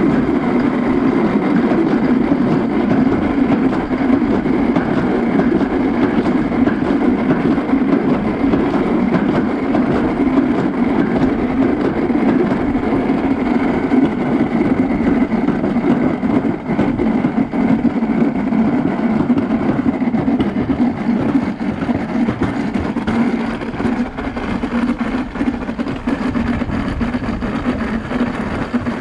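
Toboggan sled running down a stainless-steel trough track, a steady rolling noise from its runners in the metal channel.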